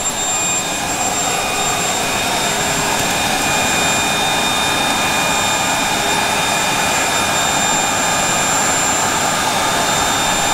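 Kobalt electric leaf blower running at steady full speed, a high whine over a loud rush of air, blasting air through a corrugated drain pipe to flush it out.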